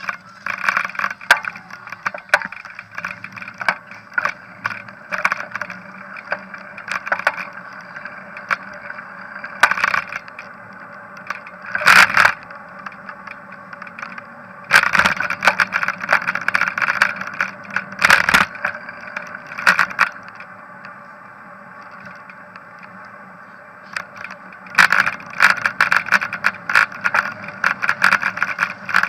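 Handlebar-mounted camera rattling and knocking as the bicycle rolls over paving, over a steady muffled rumble of tyres and wind. The knocks come in irregular clusters, easing off for a few seconds late on before picking up again.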